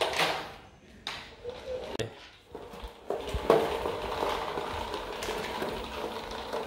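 A child's three-wheeled kick scooter rolling across a tiled floor on its plastic wheels: a few sharp clacks at first, then a steady whirring rumble from about three and a half seconds in.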